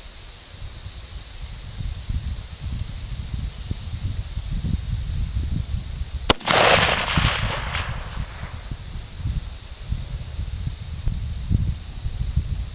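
A single AR-10 rifle shot about six seconds in, a sharp crack whose report rolls away for about two seconds.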